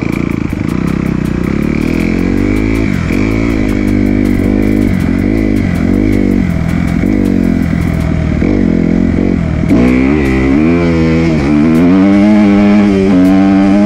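Kawasaki KX250 single-cylinder four-stroke dirt bike engine being ridden, its revs rising and falling over and over about once a second. It runs harder and louder over the last few seconds.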